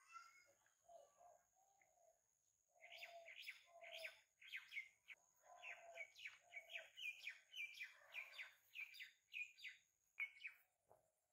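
A songbird chirping: a long, rapid run of short, quite high notes, several a second, starting about three seconds in and stopping near the end. The chirping is faint, over a steady thin high tone.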